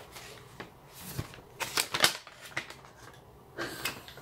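Brown paper bag rustling and crinkling as it is handled and opened, in short irregular bursts, strongest about two seconds in.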